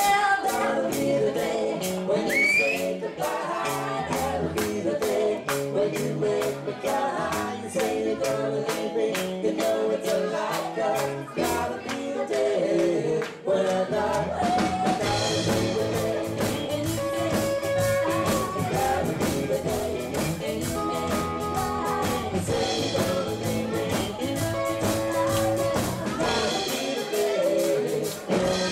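Live country-rock cover band playing: a woman singing into a handheld microphone over electric guitar and a steady beat.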